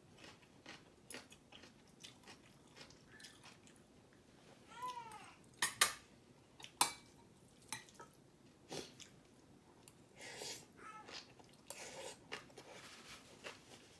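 Mukbang eating sounds: chewing and a spoon clicking against a bowl, with the sharpest clink just before the middle. About five seconds in, a short high-pitched whiny cry rises and falls once.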